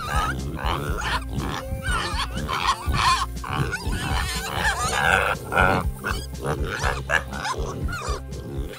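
KuneKune pigs calling in a string of short, pitch-bending grunts and squeals, over background music.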